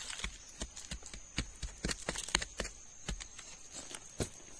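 Irregular sharp taps and crunches, about two or three a second, of a green bamboo stick jabbed into dry leaf litter and stony soil. A steady high insect drone runs behind.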